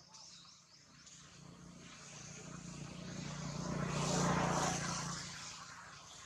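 An engine passing by: a steady low hum that swells to its loudest about four seconds in and then fades away.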